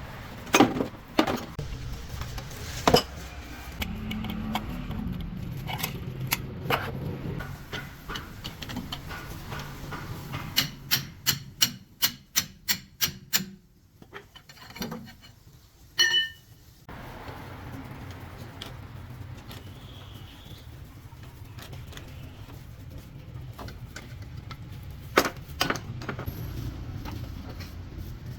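Metal parts and hand tools knocking and clinking during truck wheel and axle work, with a quick run of about eight evenly spaced strikes about halfway through, over a low steady hum.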